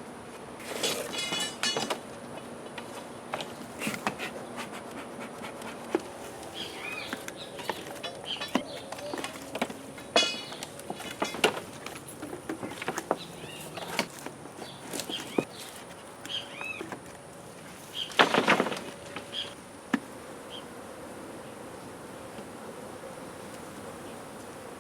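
Honey bees buzzing steadily around an opened hive, with scattered knocks and clatters throughout and a louder burst of noise about eighteen seconds in.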